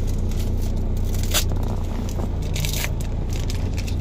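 Foil Pokémon card booster pack being torn open and crinkled by hand, with one sharp rip about a second and a half in and more crinkling near the end, over a steady low car-cabin hum.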